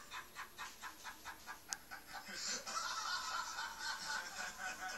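A man laughing on a TV programme, a rapid run of "ha" pulses about five a second that turns into a longer, more drawn-out laugh, heard through the TV's speaker and picked up by a phone. A single sharp click comes about a third of the way in.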